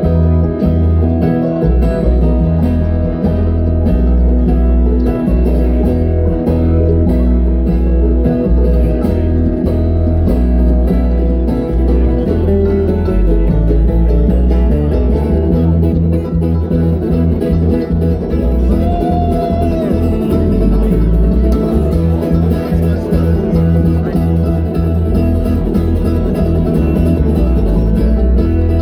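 Live bluegrass band playing an instrumental jam on acoustic guitar, banjo and upright bass, the bass walking through changing low notes.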